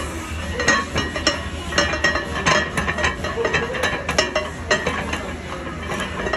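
Irregular sharp metallic clinks and clanks of barbell weight plates and gym equipment, a few each second, over a steady low hum.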